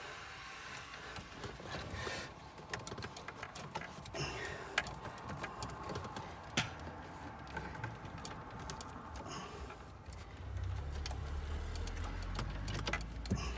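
Scattered light clicks and knocks of fingers working at plastic dashboard trim around the car's front cupholder. A low rumble comes in about ten seconds in.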